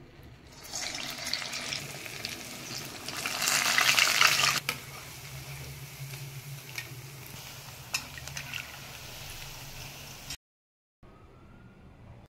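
Urad dal vada batter frying in hot oil in a kadai, a steady sizzle that swells to its loudest a few seconds in, with a few sharp clicks. The frying cuts off about ten seconds in, leaving only faint room tone.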